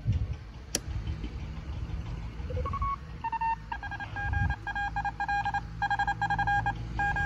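Morse code (CW) signal from the speaker of a homebrew uBITX transceiver being tuned by hand: the beat tone jumps through several pitches as the knob turns, then settles on one steady tone keyed on and off in Morse. A sharp click about a second in.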